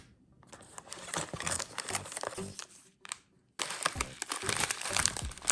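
Plastic packaging of a self-heating hot pot meal crinkling and rustling as it is handled and unpacked, with a short pause about three seconds in.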